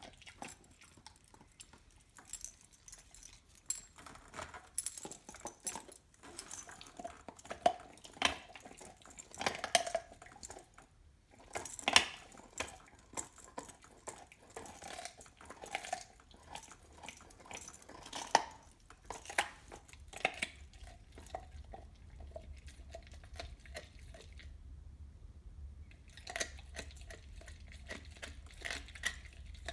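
A dog gnawing a raw bone: irregular cracking, scraping and wet chewing, with her metal collar tags jingling now and then. There is a short lull near the end before the chewing starts again.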